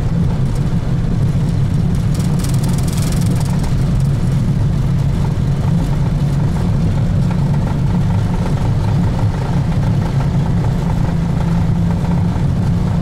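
Boeing 737 NG takeoff roll heard from the cockpit: a steady, loud rumble of the CFM56-7B engines at takeoff thrust and the wheels running down the runway as the jet accelerates toward V1.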